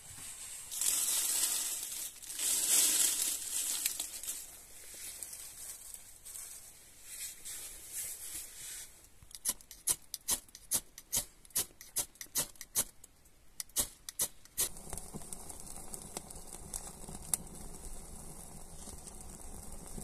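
Dry leaves and dirt rustling and scraping as they are handled by hand, then a quick run of sharp clicks, about three a second, for some five seconds. About fifteen seconds in, a small fire of dry leaves catches and burns with a steady crackle.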